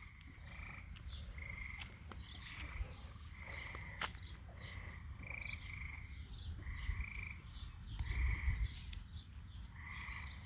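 Frogs calling in a chorus: many short calls repeated throughout, overlapping one another.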